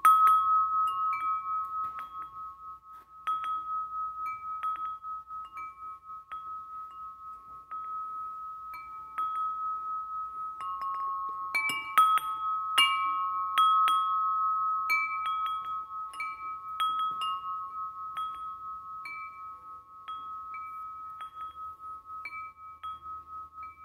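Homemade wind chime of 1-inch aluminum tubes struck by a billiard cue ball clapper, ringing with several long-held tones that throb as they overlap. The strikes come irregularly, in a quick flurry about halfway through.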